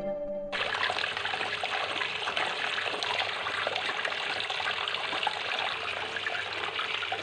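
Water trickling and splashing steadily down a small homemade Styrofoam-and-cement tabletop waterfall fountain.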